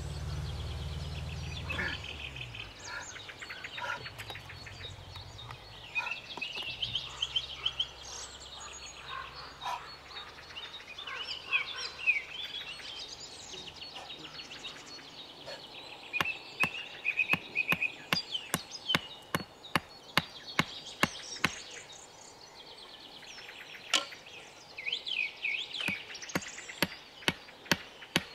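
Songbirds singing and chirping. A low hum fades out in the first few seconds, and from about halfway through there is a run of sharp, irregular knocks, two or three a second.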